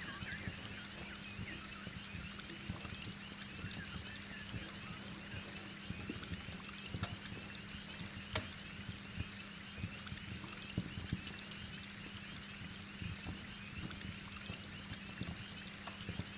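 Steady heavy rain, pouring and dripping, mixed with the crackle of a wood fire in a fireplace: scattered sharp pops and snaps, one louder pop about eight seconds in. A steady low hum runs underneath.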